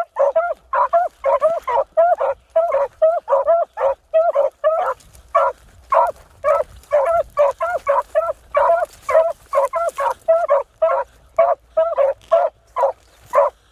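Beagles baying almost continuously in short, quick calls, about three a second, with overlapping voices; the hounds are giving tongue while running a rabbit's track.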